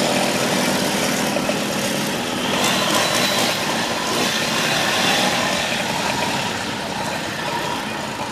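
Small two-stroke moped engine running steadily.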